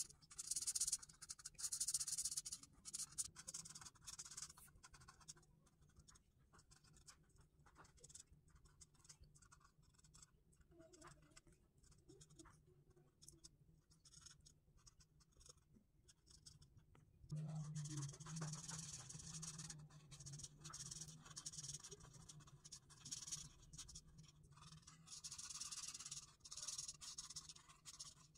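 Felt-tip marker nibs scratching across paper in coloring strokes. The strokes are dense for the first few seconds, then short and sparse as small dots are dabbed in. They turn dense again about two-thirds of the way through as an area is filled in.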